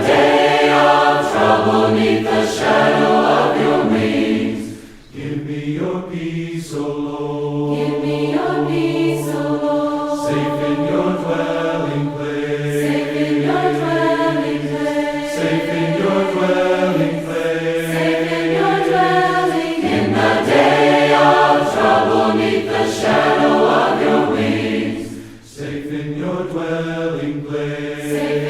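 A choir singing a slow hymn in harmony, holding long chords, with no instruments heard. The singing breaks briefly between phrases twice, about five seconds in and near the end.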